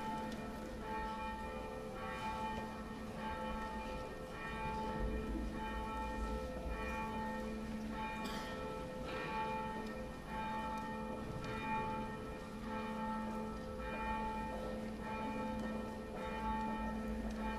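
Church bells ringing a steady, evenly paced run of strikes, each note ringing on into the next.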